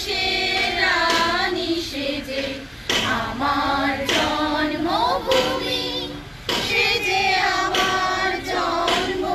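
A group of women singing together in unison without instruments, in held and gliding phrases with short pauses between lines.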